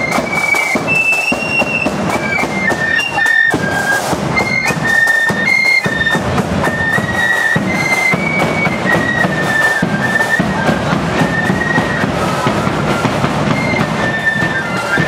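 Marching flute band playing a tune in unison on high flutes, with drums beating underneath.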